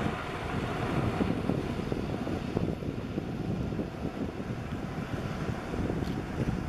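Airbus A350-941 jet on final approach, its Rolls-Royce Trent XWB engines a distant, steady rumble mixed with wind buffeting the microphone.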